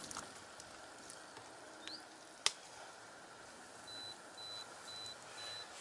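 A single sharp click about halfway through, then a high-pitched electronic beep repeating evenly a little over twice a second, starting about two-thirds of the way in.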